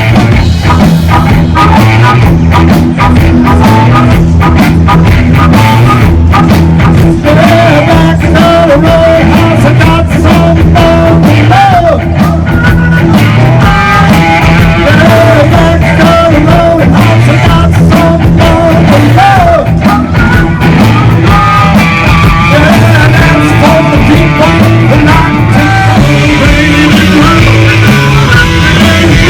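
Rock song with electric guitars, drums and a sung vocal line.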